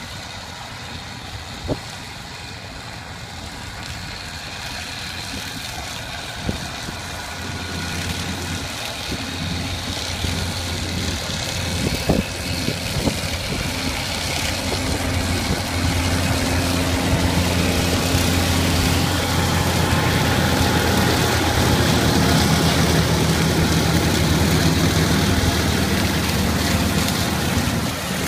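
Tractor engine running under load while pulling a batwing rotary cutter (bush hog) through tall grass, getting louder over the first half as it comes closer and then holding steady. A few brief knocks stand out over the drone.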